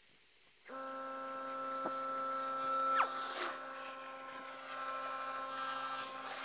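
A steady mechanical hum with several even overtones switches on about a second in. Near the middle there is a brief high squeak that falls in pitch.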